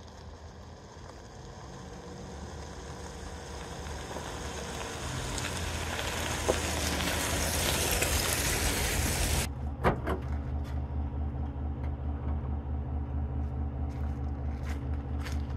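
Pickup truck driving up a gravel road, tyres crunching on gravel and engine growing louder as it approaches and passes close by. About two-thirds of the way through the crunching stops abruptly and the engine settles to a steady low idle, with a few sharp clicks.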